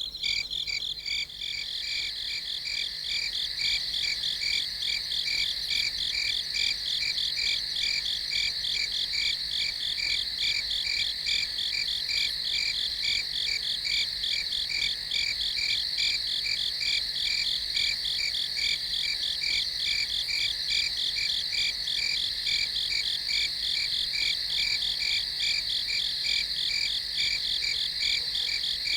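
Night chorus of crickets chirping in rapid, even pulses over a steady high trill, continuous and unchanging.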